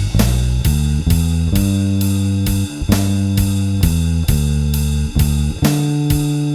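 Compressed electric bass, a Bronco bass on its TV Jones Thunderblade neck pickup through a Seymour Duncan Studio Bass Compressor, playing a blues-rock line of held notes over a drum kit keeping a steady beat.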